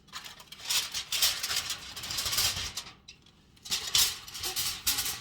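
Crinkling and rustling of something being handled, in two spells with a short pause about three seconds in.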